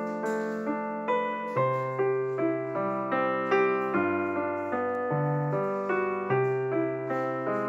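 Piano music: a slow melody of single notes, about two a second, over held bass notes.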